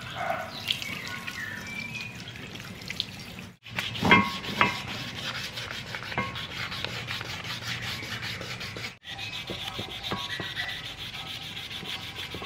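Hand wet sanding of a painted motorcycle wheel with 360-grit sandpaper: repeated rubbing strokes of the wet paper on the rim as the clear coat is scuffed dull. A louder clatter comes about four seconds in.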